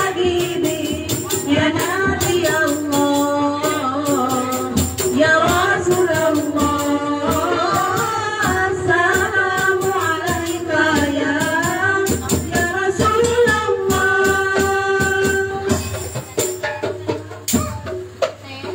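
A hadroh ensemble plays: women sing an Islamic devotional song (sholawat) in unison over frame drums with jingles and a drum kit. The singing stops about three seconds before the end, and the drums taper off after it.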